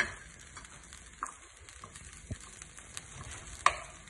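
Wooden spoon scraping and knocking against a nonstick frying pan on the hob. There are a few sharp knocks, the loudest at the start and near the end, over a faint sizzle from the hot pan.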